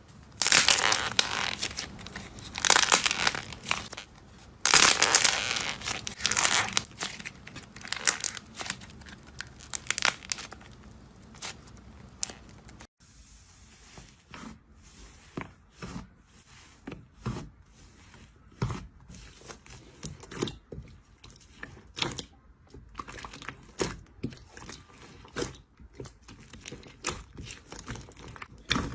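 Slime being squeezed and worked by hand, giving off crackling and popping. There are dense runs of crackle in the first several seconds, then sparser separate pops after an abrupt change about thirteen seconds in.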